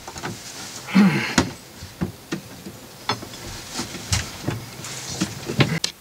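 Irregular clicks, knocks and short scrapes of hands handling battery jumper cables and metal bus bars on a bank of batteries, with the loudest scrape about a second in.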